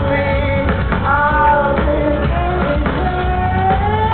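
Rock band playing live, with a male lead singer's voice over drums and electric guitar.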